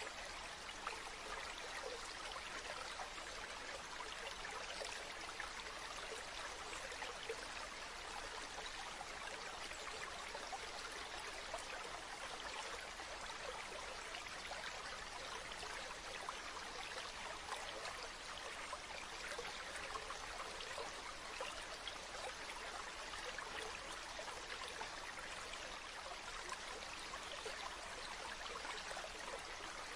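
Stream water running steadily, a continuous even rush made of many small trickles and splashes.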